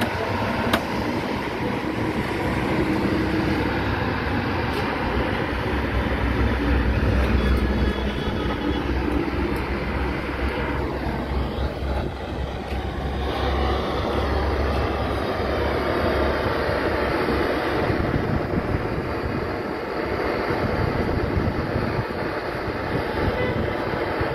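Gas brazing torch burning with a steady roar and a deep rumble underneath, as it heats the radiator's top tank for a repair.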